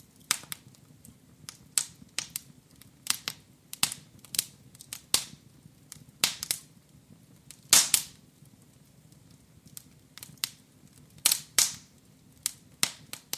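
Wood burning in a fireplace, crackling with irregular sharp pops and snaps, a few of them loud, over a faint steady low hum.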